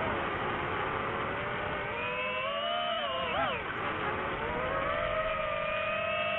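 Quadcopter drone propellers and motors whining, the pitch rising and falling as the throttle changes. There is a quick swoop up and down about three and a half seconds in, and the pitch holds steadier near the end.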